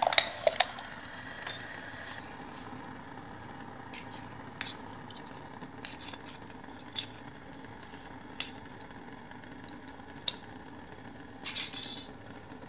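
Occasional light metallic clicks and clinks as a thin aluminium drink can is cut apart with a blade and handled, with a short scraping rasp near the end.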